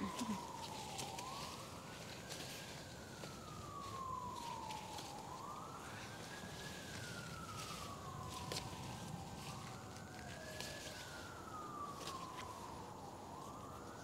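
Emergency vehicle siren sounding faintly in a slow wail, its pitch rising and then falling away about every four seconds; three full cycles, with a fourth beginning near the end.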